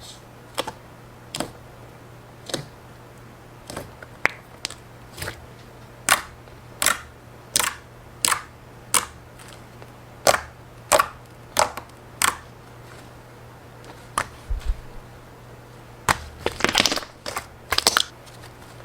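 Crisp crunches and cracks from a brittle material being pressed or cut, one or two a second, with a quick cluster of crackles near the end. A faint steady low hum lies underneath.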